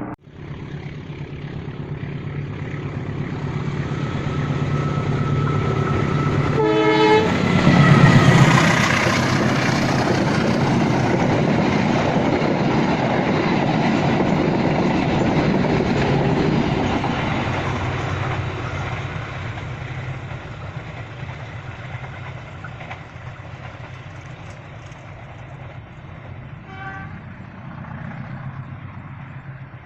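Passenger train approaching and passing close by. The horn gives one short blast about seven seconds in, just before the loudest moment. The train's rumble stays loud for several seconds, then slowly fades as it moves away, and a fainter short horn toot sounds near the end.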